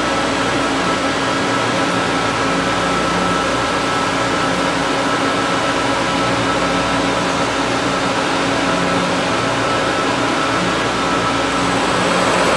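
SNK bridge mill's 5-inch Seco Carboloy octagonal face mill taking a roughing cut, about 0.050 inch deep, across H-13 tool steel plate. The cut makes a steady, even noise with a constant low hum and a faint higher steady tone, holding unchanged throughout.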